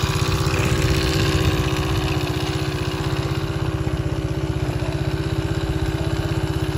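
Motorcycle engine idling steadily with an even, rapid pulsing beat.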